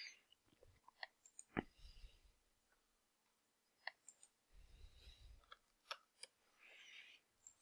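Faint, scattered clicks of a computer keyboard and mouse as text is typed and options are picked, at irregular intervals with no steady rhythm.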